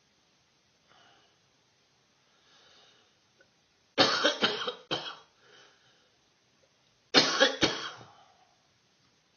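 A person in a coughing fit: a bout of three or four harsh coughs about four seconds in, then two or three more about three seconds later, with faint breaths before them.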